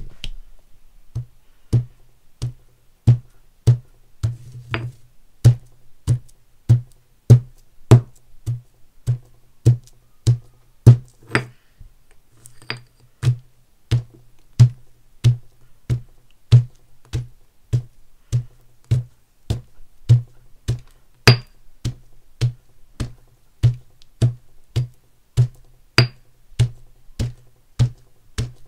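Stone pestle pounding sticks of chalk in a stone mortar, crushing them. The blows come as a steady run of thuds with a sharp click, about one and a half to two a second.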